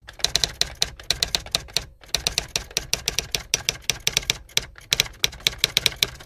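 Typewriter keystroke sound effect: rapid key clicks, several a second, with a couple of brief pauses, as on-screen text is typed on.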